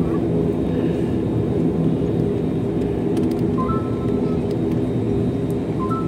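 Jet airliner engines running at taxi idle: a steady rumble with a low hum. Two short two-note beeps come about two seconds apart in the second half.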